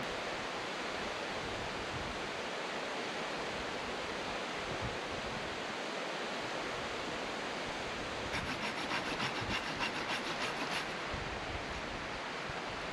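Steady, even rushing outdoor noise, with a brief run of rapid faint clicks, about five a second, from about eight seconds in.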